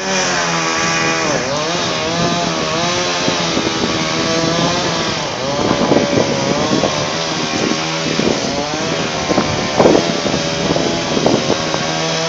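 Chainsaw running hard as it cuts, its engine pitch dipping and rising with the load. Sharper, uneven bursts come through in the second half.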